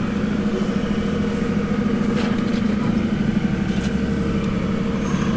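Toyota Land Cruiser 60 Series engine running steadily under way on a rough sand track, heard from inside the cab as a constant low drone. Two faint knocks come about two and four seconds in.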